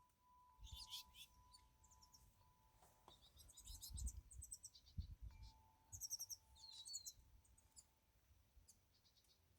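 Small wild birds chirping in quick runs of high notes, a few bursts several seconds apart, with faint low rumbles underneath.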